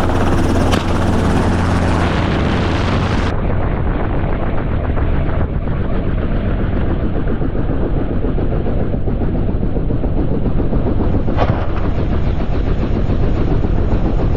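Helicopter running steadily and loudly, its rotor chop and engine noise filling the sound, with a brief sharp click about a second in and another near the end.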